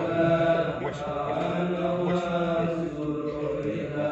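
A group of men chanting Arabic prayers together in long, drawn-out melodic lines, as in a communal dhikr recitation at a graveside.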